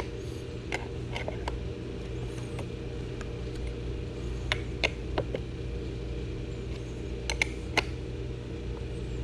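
A scattering of short metallic clicks and clinks from a 14 mm wrench tightening the nuts on the battery terminals, over a steady low hum.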